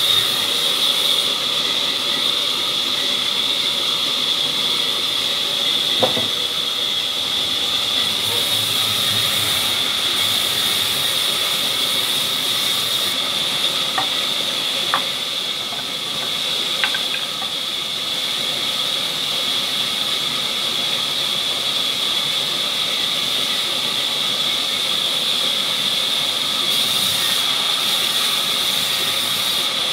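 Vertical band saw running and cutting through a log: a steady high-pitched whine over a constant hiss, with a few sharp clicks around the middle.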